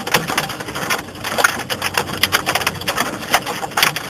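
Large hailstones striking hard surfaces in a dense, irregular clatter of sharp hits.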